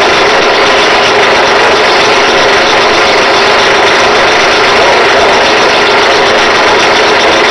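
Drill press running with a valve guide spinning in its chuck while a file is held against it, a steady loud scraping over the motor's hum: the guide is being filed down to size because it came oversize.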